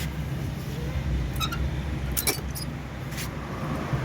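Brake caliper and worn pads being lifted off a car's front disc brake, with a few short metallic clinks of the parts, over a steady low hum.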